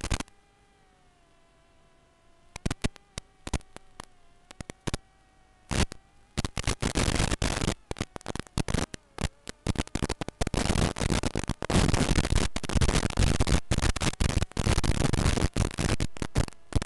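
Radio static from an analog FPV video link: scattered sharp crackles over a faint steady whine, turning into dense crackling hiss from about six seconds in. The crackle is the sign of the video signal breaking up.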